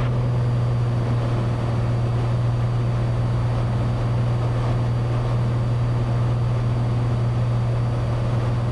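Cessna 182's piston engine and propeller droning steadily in flight, a strong low hum that does not change.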